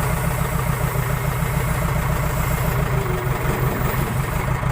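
Case 580 Super K backhoe loader's diesel engine running steadily at low speed with an even low throb.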